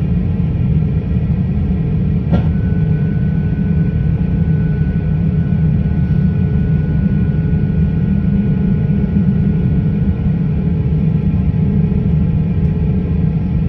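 Steady low rumble of an airliner's jet engines and air system heard inside the passenger cabin while the plane is on the ground at low power. A sharp click about two seconds in is followed by a faint steady high tone.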